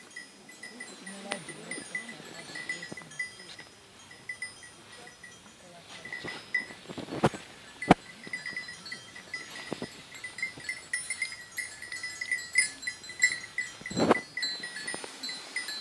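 Livestock bells tinkling continually among a group of goats at a pasture fence. A few sharp knocks come about seven and eight seconds in, and a short, louder sound comes near the end.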